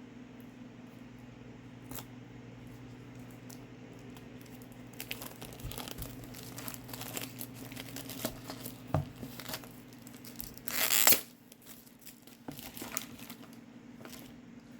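Packaging being torn open and crinkled by hand: rustling and crinkling from about five seconds in, with one loud tear about two-thirds of the way through. A steady low hum runs underneath.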